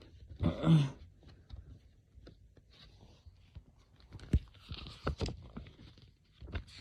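Cardboard box and paper booklet being handled and pushed back into a CD box set: scattered taps and clicks with short paper rustles. A brief voice sound comes about half a second in.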